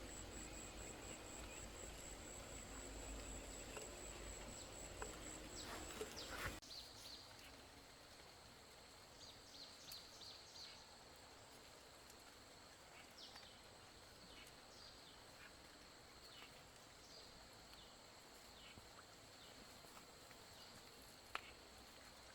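Faint rural outdoor ambience: a steady high-pitched hum, with scattered short chirps and clicks. A low rumble in the first six and a half seconds stops abruptly.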